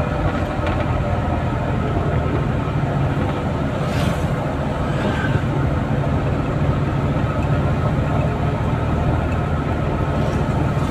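Engine and road noise of a moving vehicle, heard from inside its cab: a steady low drone, with a short sharp rattle about four seconds in.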